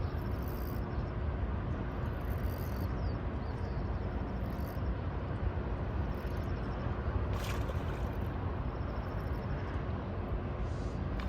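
Steady low rumbling outdoor noise with a faint constant hum running through it, and a few faint high chirps.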